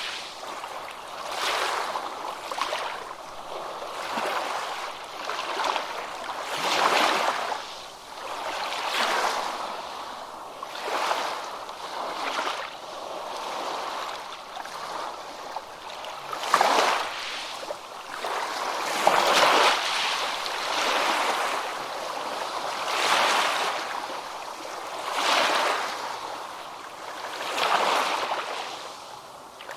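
Ocean waves washing in and breaking, a rushing surge of water noise roughly every two seconds with little deep rumble.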